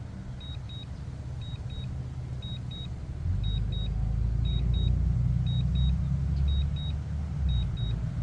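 DJI drone remote controller beeping the return-to-home alert: pairs of short high beeps, about one pair a second, over a low wind rumble on the microphone that grows much louder and gusty about three seconds in.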